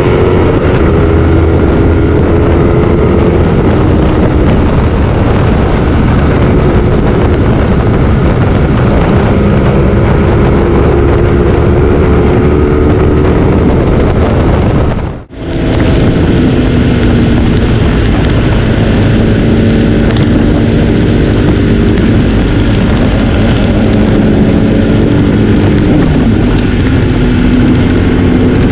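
Motorcycle engine running at road speed under heavy wind rush on the microphone, its pitch drifting up and down with throttle. The sound dips out for a moment about halfway through.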